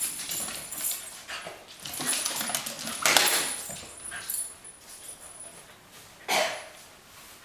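Corgi puppy and adult corgi play-fighting: clicking claws and scuffling, with short dog vocal sounds. The loudest comes about three seconds in and another a little after six seconds.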